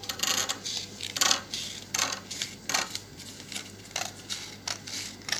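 Scissors snipping through a folded sheet of gift paper: a run of short, crisp snips, about three a second.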